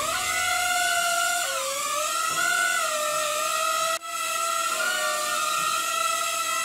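Small four-motor toy drone inside a protective ball, hovering, its propellers giving a steady high whine whose pitch wavers up and down during the first couple of seconds and then holds level. The whine breaks off for an instant about four seconds in.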